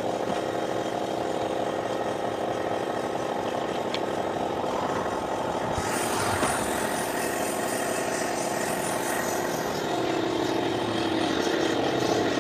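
An engine or motor running steadily with a low hum; about six seconds in the sound turns brighter and hissier.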